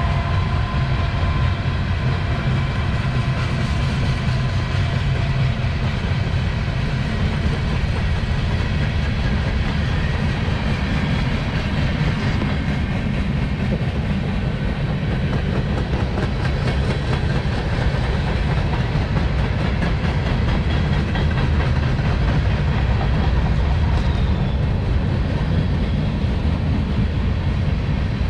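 Freight cars of a CSX manifest train rolling past, a steady rumble of wheels on rail.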